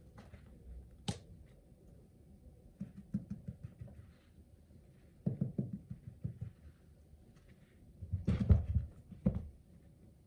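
A cat at play: soft thumps and scuffling of its paws in a few short bursts, the loudest near the end, with one sharp click about a second in.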